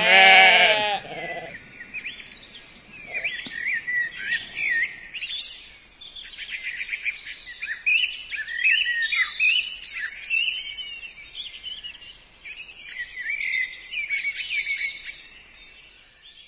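A sheep bleats once, loudly, at the start, over a dense chorus of small songbirds chirping and trilling without a break.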